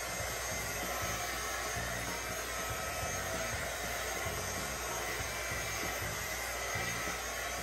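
Handheld hot-air tool blowing steadily over wet acrylic paint on a canvas, a constant whooshing noise with a faint whine, used to coax cells to form in the pour.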